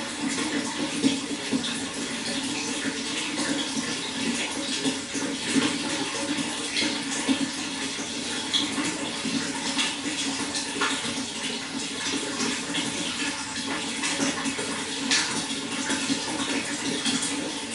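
Running water flowing and splashing steadily, a constant busy rush with small bright splashes throughout.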